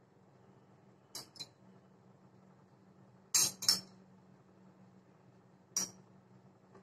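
A steel spoon clinking against a glass bowl while sugar syrup is scooped out: two quick clinks about a second in, a louder pair a little past halfway, and a single clink near the end.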